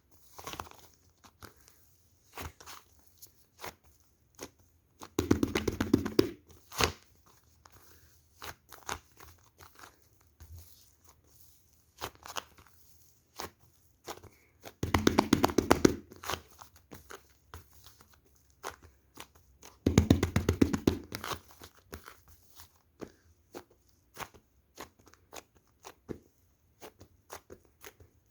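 Close-up crackling and crunching, like a crunchy material being squeezed or torn. It comes in three dense bursts of rapid pops, about five, fifteen and twenty seconds in, with scattered single clicks and pops between.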